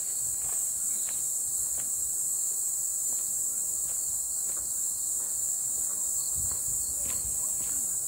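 Steady high-pitched drone of insects in the trees, with footsteps on a dirt path scattered with dry leaves.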